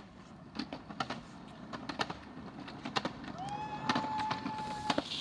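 Small ride-on scooter wheels rolling down a concrete driveway: a low rolling rumble with irregular clicks and ticks as the wheels pass over the grit and cracks. Near the end a steady high tone is held for about a second and a half.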